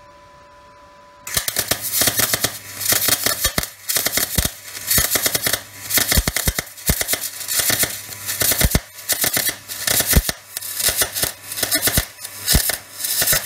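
MIG wire-feed welder arc crackling as a bead is laid inside a steel differential pan, with the current turned well up. It strikes about a second in and goes on as a loud, uneven crackle.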